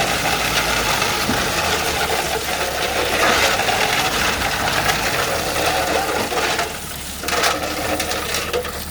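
A heavy machine's diesel engine running steadily with a mechanical rattle, easing off a little about seven seconds in.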